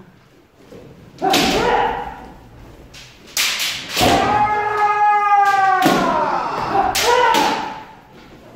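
Kendo sparring: shouted kiai cries, the longest held for about two seconds in the middle, with several sharp cracks of bamboo shinai strikes.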